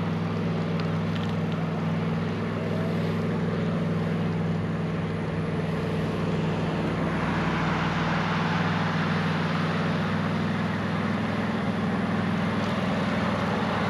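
Riding noise of a bicycle, recorded from the bike: a steady low hum with wind rushing over the microphone, the rush growing stronger about halfway through.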